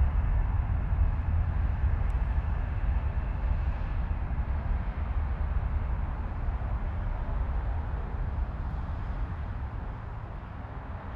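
Twin jet engines of an Airbus A320-family airliner running at high power as it rolls down the runway, a low rumble that fades gradually as the aircraft pulls away.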